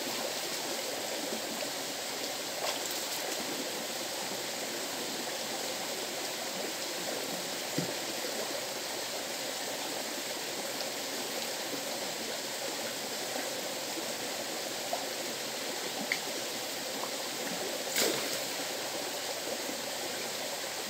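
Steady rush of a flowing river, with a few short sharp clicks over it, the clearest about three seconds before the end.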